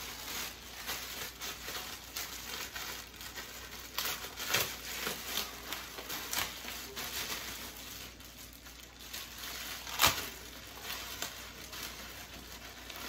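Clear plastic packaging bag crinkling and rustling as it is handled and pulled open, with irregular crackles and one sharp click about ten seconds in.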